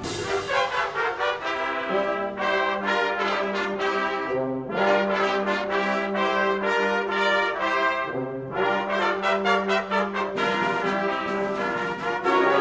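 School concert band playing a slow, quieter passage, brass to the fore: sustained chords over a held low note, the harmony changing every few seconds.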